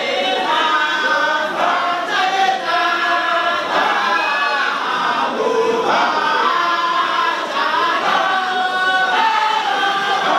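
A group of men chanting a Sufi devotional song together, many voices singing one melody that rises and falls without a break.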